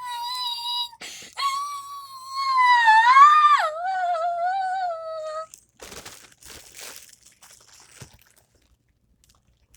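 A girl's voice, raised by helium, holds a long, very high drawn-out note that wavers, rises and then drops sharply for about five seconds. Soft crinkling and rustling follows.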